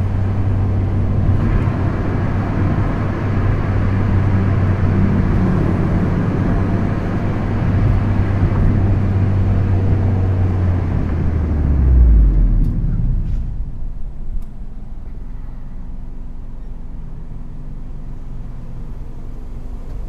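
Proton Inspira's 1.8-litre Mitsubishi 4B10 MIVEC inline-four with a Supercircuit aftermarket exhaust, heard from inside the cabin, running at a steady low-rev drone under way. About twelve seconds in the note falls sharply as the revs drop, and the engine settles to a quieter, lower drone.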